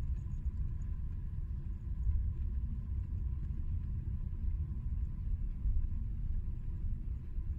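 Car driving along a road: a steady low rumble of engine and tyre noise, as heard from inside the moving car.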